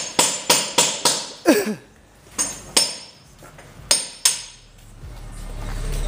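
A run of sharp, ringing knocks, about three a second at first, then a few spaced ones. Near the end the deep bass of a car stereo begins to swell in.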